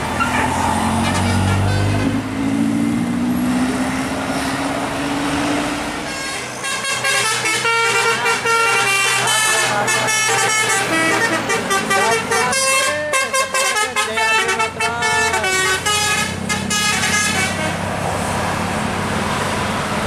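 A tour bus's engine running and rising in pitch as it pulls past, then a telolet basuri musical bus horn plays a fast tune of many short notes for about ten seconds, with a few sliding notes in the middle. Engine and road noise return near the end.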